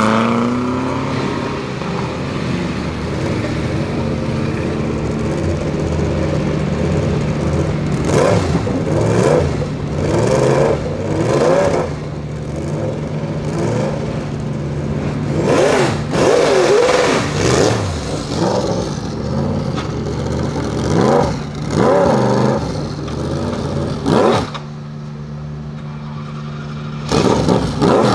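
Sauber Mercedes C9's turbocharged 5.0-litre V8 idling with a steady low note and blipped repeatedly in short revs that rise and fall. It drops quieter for a couple of seconds, then opens up loudly near the end.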